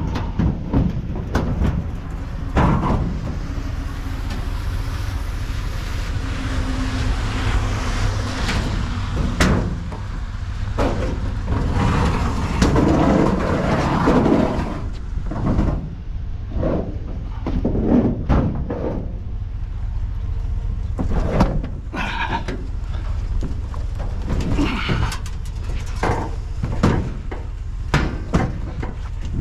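Repeated knocks and clunks of heavy discarded metal appliances being handled, over a steady low rumble.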